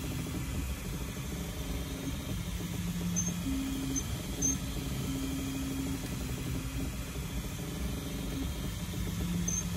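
3D printer's stepper motors whining at steady pitches that jump from one to another every second or so as the print head changes direction while printing, over the constant hiss of its cooling fans.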